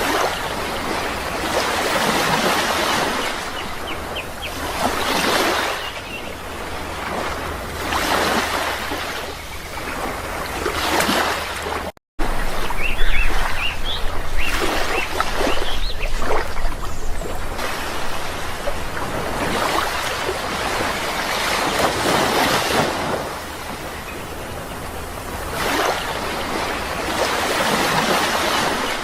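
Sea waves breaking and washing in, swelling and fading every few seconds, with a few faint bird chirps. The sound cuts out completely for a moment about twelve seconds in.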